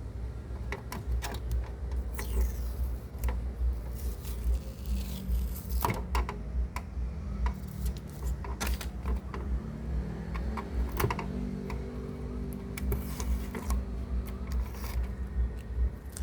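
Irregular sharp clicks and light taps, like small hard parts being handled and set down, over a steady low rumble.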